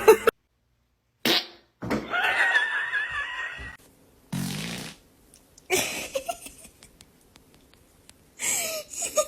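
A string of fart sounds in separate short bursts, with dead silence between them. One long wavering fart runs from about two seconds in for nearly two seconds, followed by a shorter, deeper one and a few more brief ones.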